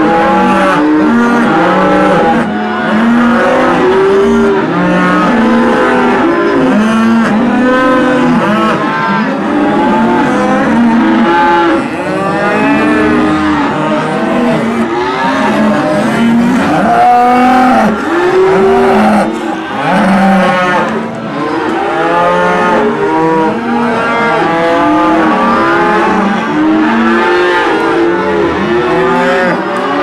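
A herd of Devon cattle mooing constantly, many calls overlapping one another with hardly a gap.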